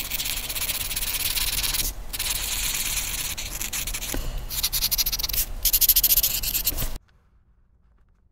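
A coloring tool shading on paper: fast back-and-forth scratchy rubbing strokes, broken by a few brief pauses, that stop abruptly about seven seconds in.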